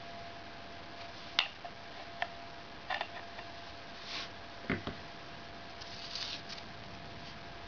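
Hard plastic knife sheath and its detached belt clip being handled: a few sharp plastic clicks and knocks, with a couple of brief rustles, over a faint steady hum.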